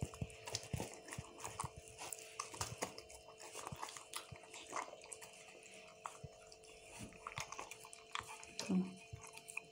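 A dog eating wet pâté from a stainless steel bowl: quick, irregular licking and smacking clicks.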